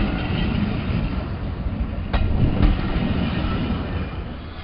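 The last passenger coaches of a train rolling past close by: wheels rumbling on the rails, with a sharp clack over a rail joint about two seconds in. The rumble fades near the end as the last coach clears.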